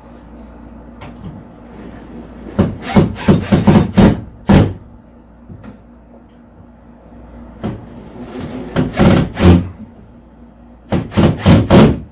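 Power drill driving screws in short trigger bursts, three groups of bursts, each of the first two preceded by a thin high whine.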